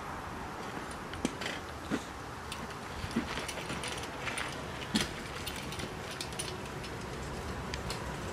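City bicycle being turned around and ridden off: irregular clicks and rattles from the chain, freewheel and frame, over a steady hiss of tyres and air.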